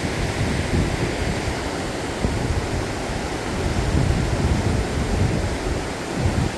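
Steady rushing of the Miryang River running high with floodwater after days of heavy rain, with wind buffeting the microphone in uneven low rumbles.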